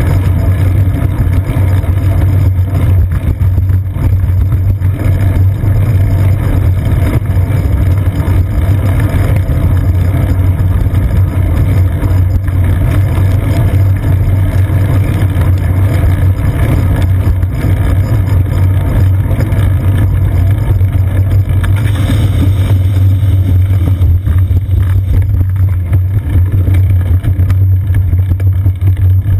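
Steady low rumble of a bicycle ride picked up by a seat-post-mounted GoPro Hero 2: road vibration and wind noise while riding on wet pavement.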